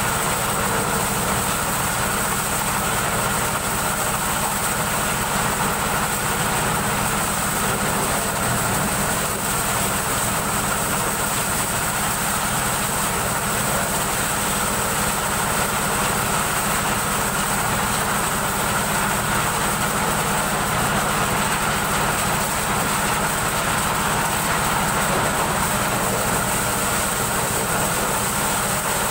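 Motorised corn sheller running steadily while maize cobs are fed through it: a continuous engine drone mixed with the even rattle and hiss of the threshing machinery.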